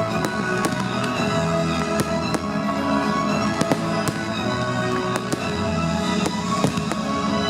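Fireworks going off in a rapid, irregular series of bangs and crackles over loud music with held notes.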